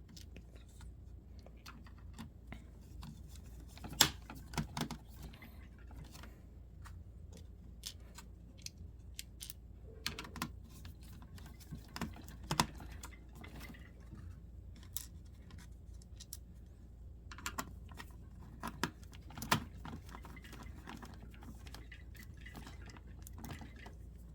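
Laptop casing and small plastic and metal parts being handled and pressed into place: scattered clicks and taps, with three sharper knocks spread through.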